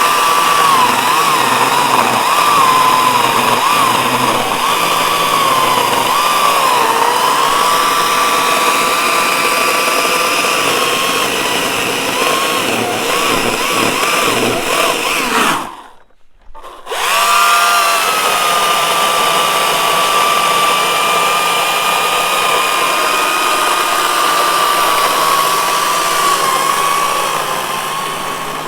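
GreenWorks Commercial battery chainsaw running with a steady high electric whine, its pitch wavering as it takes load in the wood. It stops for about a second just past halfway, then spins straight back up and runs on evenly.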